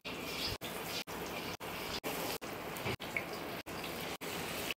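Batter-coated paneer pieces sizzling as they deep-fry in hot oil, a steady fizzing hiss that briefly drops out about twice a second.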